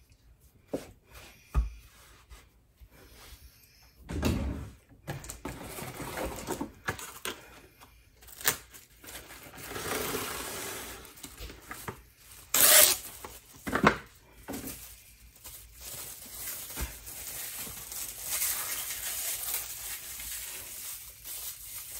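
Plastic cling wrap rustling and crinkling as it is pulled from its box and wrapped around a ball of pasta dough, with two short, sharp, loud sounds about halfway through, like the film being torn on the box's cutter.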